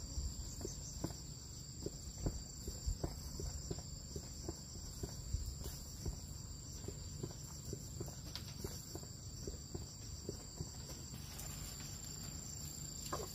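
Crickets trilling steadily in two high, even tones, with scattered small crackles and ticks from the wood embers under a duck roasting on a bamboo spit.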